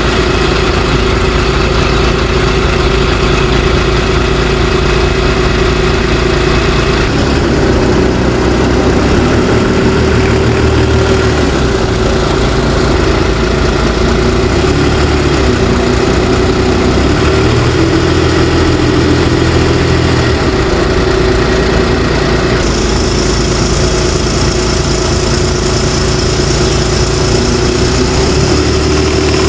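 Heavy machinery engine running steadily at idle, with abrupt changes in its sound about seven seconds in and again around twenty-two seconds.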